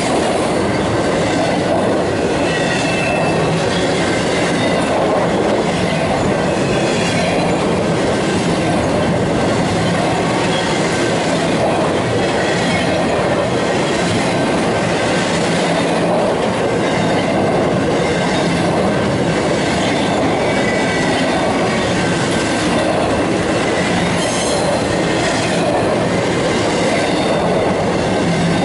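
Empty intermodal flatcars of a Union Pacific freight train rolling past close by at steady speed: a continuous rumble of steel wheels on rail, with thin high wheel-squeal tones and repeated clicks from the wheels crossing rail joints.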